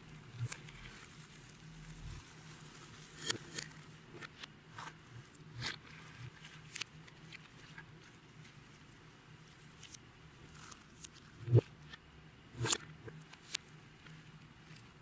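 Clear slime being worked by hand, giving irregular sticky clicks and pops, with two louder pops a little past the middle.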